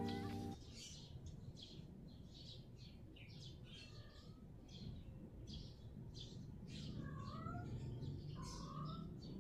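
Small birds chirping, short high chirps repeating about twice a second, with a few lower chirps joining in near the end, over a faint low background rumble. A piece of music cuts off about half a second in.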